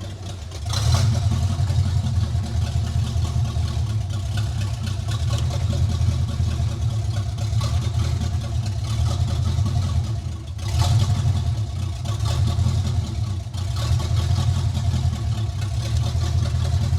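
C4 Corvette's V8 running steadily under load. It picks up about a second in and eases off briefly twice, about ten and thirteen seconds in, before picking up again.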